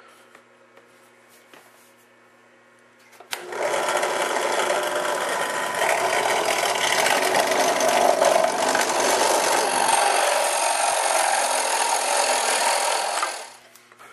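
Drill press switched on about three seconds in, running for about ten seconds as a 1 1/8 inch spade bit bores a hole through a wooden board, then cutting off near the end.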